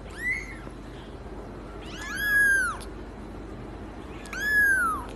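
Domestic cat meowing three times: a short meow near the start, then two longer, high-pitched meows that rise and fall, about two seconds apart.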